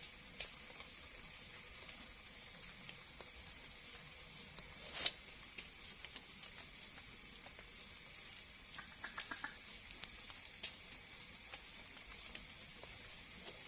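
Quiet night ambience with a steady faint high hiss, broken by scattered sharp clicks: one loud snap about five seconds in and a quick run of four or five clicks about nine seconds in.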